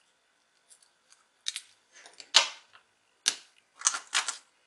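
Sharp little clicks and taps, about five of them with the loudest near the middle, from fingertips pressing the button switches and plastic parts of an opened Sony SBH50 Bluetooth headset.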